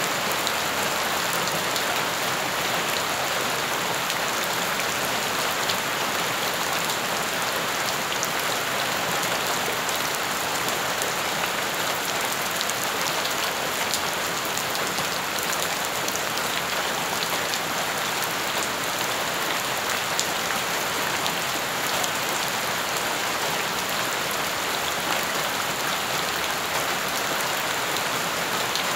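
Steady rain falling onto wet, puddled dirt ground: a dense even hiss of splashing drops, dotted with sharper single drop hits.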